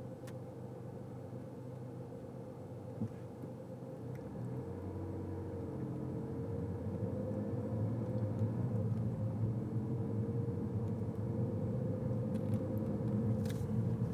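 Car running, heard from inside the cabin: a steady engine and road hum that grows louder from about four seconds in.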